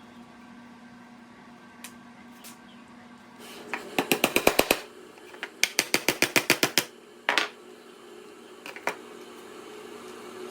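Two quick bursts of rapid sharp impacts, about ten a second and each under a second and a half long, followed by two single knocks, over a steady low machine hum.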